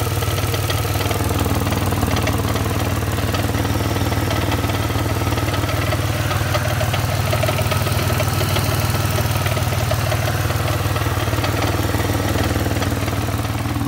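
2002 Pontiac's engine idling with a steady, rapid clacking that almost sounds like a diesel, a noise the owner suspects could be a piston rod.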